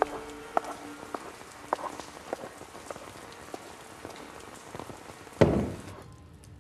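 Steady rain with scattered drips and patters. A single dull low thump about five and a half seconds in is the loudest sound.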